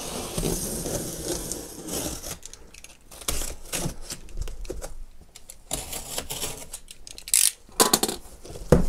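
A utility knife slitting the packing tape along the top seam of a large cardboard box, in irregular scraping strokes with short clicks. Hands rub and knock on the cardboard, with a few sharper knocks near the end.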